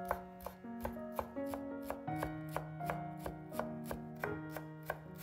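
Chef's knife chopping fresh dill on a wooden cutting board, a steady run of sharp cuts about three a second. Background music with held notes plays underneath.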